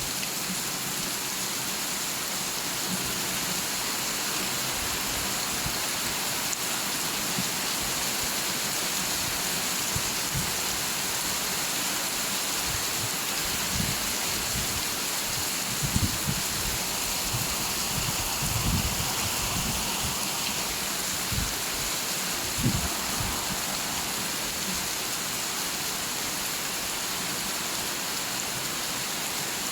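Steady, even rain, with scattered low thuds, mostly around the middle, that show up as small bumps in loudness.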